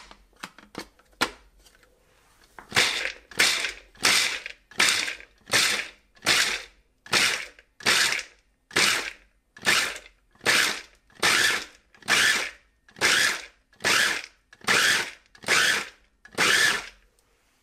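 A few plastic clicks as the lid is locked on, then a KitchenAid 5-cup food chopper pulsed on its chop setting about twenty times in quick, even succession, each short burst of the motor spinning the steel blade through walnuts that rattle against the plastic bowl. The nuts are being coarsely chopped.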